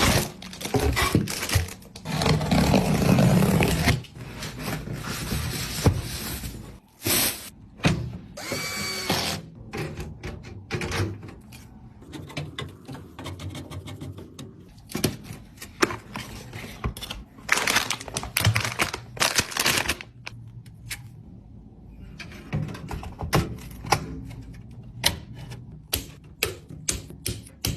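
Handling noises of desktop PC parts being assembled: a run of clicks, taps and knocks of plastic and metal parts fitted together, with rustling between them and a denser stretch of scraping and rattling a few seconds in.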